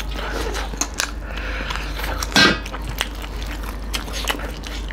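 Close-miked chewing and lip-smacking of two people eating beef and bamboo shoot curry with rice by hand: a run of short wet clicks and smacks, with one louder brief mouth sound about two and a half seconds in.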